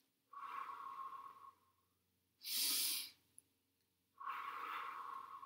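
A woman doing a deep-breathing exercise: a long blow out, a short, louder breath in through the nose as if smelling a flower about halfway through, then another long blow out.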